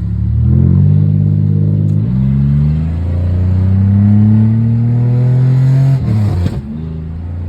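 Pontiac engine with its catalytic converters removed, exhaust loud as it accelerates under throttle: the pitch climbs, drops with a gear change about two seconds in, climbs again, then falls away to a lower steady drone as the throttle is lifted about six seconds in.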